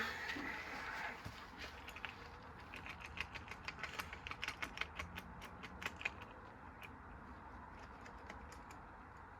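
Golf balls clicking and knocking in a turning washing-machine drum: a fading rush at the start, then a run of quick sharp clicks, several a second, that thins out near the end.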